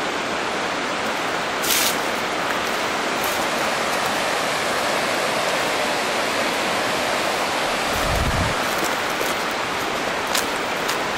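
Steady rush of a mountain creek's flowing water, with a dull low bump about eight seconds in.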